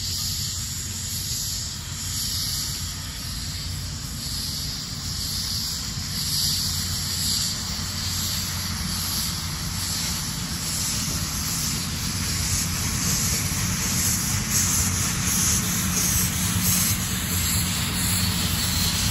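Cass Scenic Railroad's No. 4, a Shay geared steam locomotive, approaching at low speed with hissing steam and soft exhaust chuffs over a low rumble. It grows steadily louder as it draws near.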